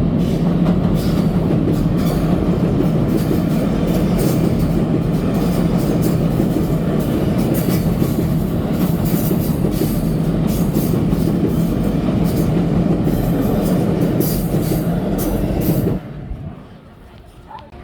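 A train running past close by: a steady loud rumble with a low hum and rapid clatter of wheels over the rail joints. It cuts off abruptly near the end.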